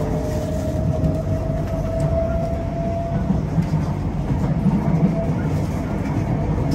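Singapore MRT East-West Line train running between stations, a steady low rumble of wheels on track. A faint whine rises slightly in pitch over the first three seconds, then fades.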